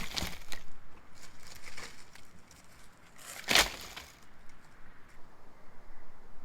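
Light handling noises: a sharp click right at the start, a louder knock or snap about three and a half seconds in, and small taps and rustles between.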